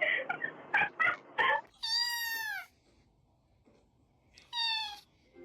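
A cat meowing twice: a long meow about two seconds in whose pitch rises then falls, and a shorter one near the end.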